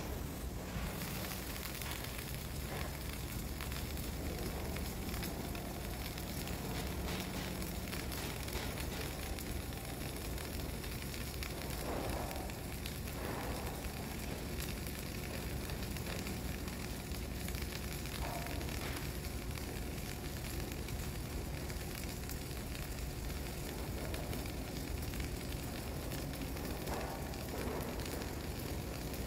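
Flux-cored arc welder running a bead: the arc gives a steady, unbroken crackling sizzle.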